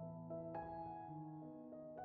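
Instrumental background music: held keyboard notes over a sustained low chord, with a new note struck about half a second in.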